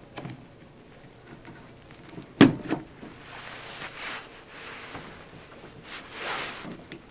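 A single sharp click about two and a half seconds in, followed by a fainter one, as the timer-relay circuit is powered up; soft rustling around it.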